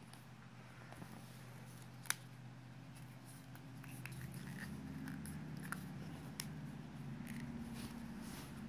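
Faint handling noise of a Samsung Gear S smartwatch being worked back into its box insert by hand: scattered light clicks and rubbing, with one sharper click about two seconds in. A low steady hum runs underneath and gets a little louder about halfway.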